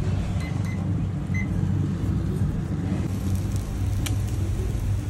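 A steady low mechanical hum, like a fan motor running, with one light click of the steel grill tongs about four seconds in.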